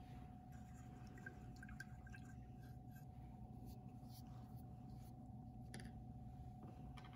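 Near silence: room tone with a steady faint hum and a few soft ticks.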